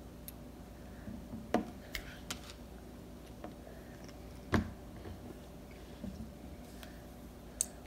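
A few scattered light taps and clicks as a small plastic squeeze bottle and a clear plastic blender cup are handled on a table; the loudest knock comes about four and a half seconds in, over a faint steady room hum.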